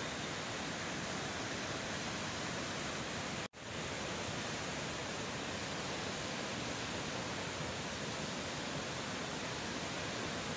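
Steady rushing noise with no distinct events, cutting out for an instant about three and a half seconds in.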